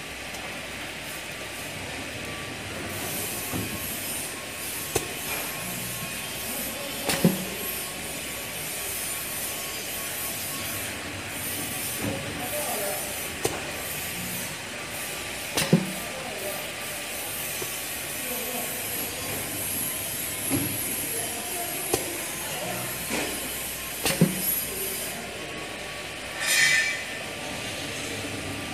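Crispy waffle biscuit machine running: a steady mechanical hiss with a faint steady hum, broken by sharp clacks every few seconds and a short rasping burst near the end.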